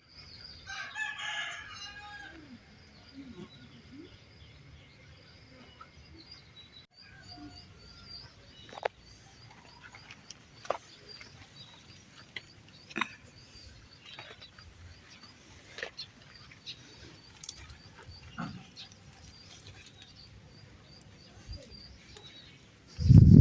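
A rooster crows once near the start. After that comes faint, regular high-pitched chirping with scattered soft clicks, and a loud low thump near the end.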